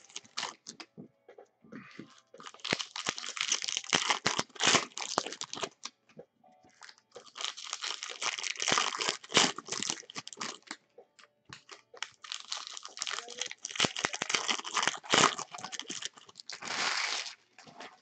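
Foil wrapper of a jumbo trading-card pack being torn open and crinkled by hand, in three long stretches of crackling.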